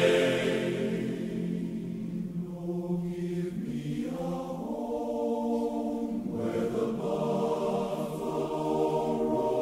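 Large men's chorus singing held chords in close harmony, with no clear words, moving to a new chord every second or two.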